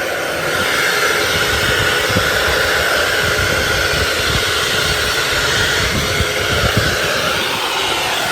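Hand-held hair dryer running steadily: a rush of blown air with a held whine from its fan motor.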